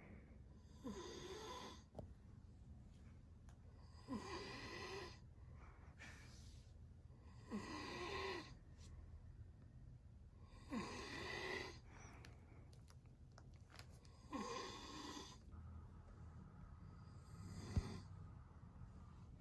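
A man snoring in slow, regular breaths: six snores about three and a half seconds apart, each lasting about a second.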